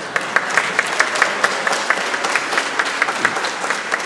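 Congregation applauding: many hands clapping in a dense patter that starts suddenly.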